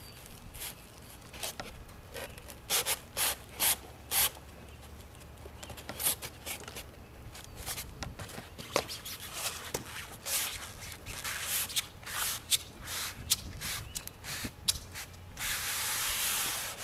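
Foam pool coping rubbing and scraping against its metal track as it is pressed and worked into an inside corner. There is a quick run of short rubbing strokes about three seconds in, scattered scrapes after, and a steadier rasp near the end.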